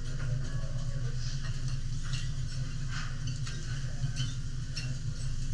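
Short clicks, taps and scrapes of a chef's metal knife and spatula on a steel teppanyaki griddle, over a steady low hum.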